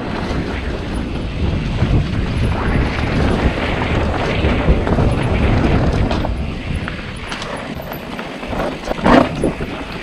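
Wind buffeting the microphone and tyres running over loose, dusty dirt as a mountain bike descends a trail, with a few knocks from the bike over rough ground.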